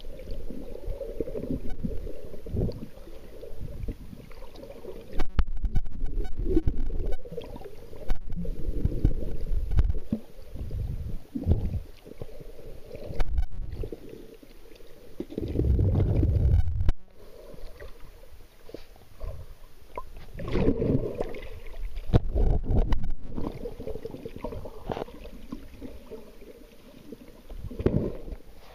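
Muffled water noise picked up by a camera held underwater: irregular low rumbling and sloshing surges as it moves through the water, with one long heavier surge about halfway through.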